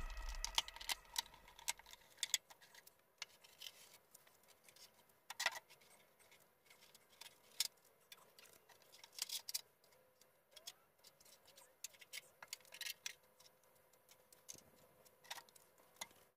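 Faint, irregular clicks and light taps of hand work on an old VW Beetle's door and interior panel, with a few sharper knocks scattered through.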